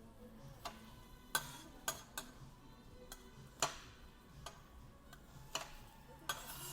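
Utensils and tableware knocking and clacking: about eight sharp, irregularly spaced knocks over a faint background.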